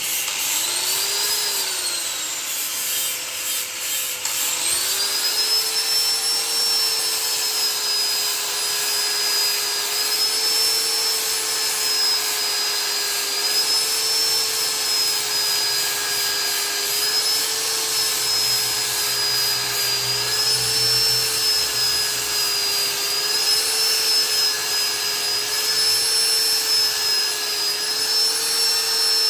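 Angle grinder slowed by a dimmer, grinding a knife blade forged from bearing steel: a steady motor whine that wavers slightly under pressure on the blade. The whine briefly rises and falls away about a second in, then comes back up about four and a half seconds in. The reduced speed is meant to keep the blade from overheating.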